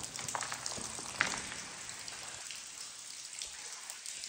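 Footsteps on wet gravel ballast: an irregular crackling with small ticks and one sharper click about a second in.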